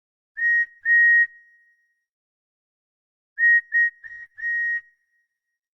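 Steam locomotive whistle sound effect: one steady high tone, blown as two short toots, then after a pause four quick toots, the last held a little longer.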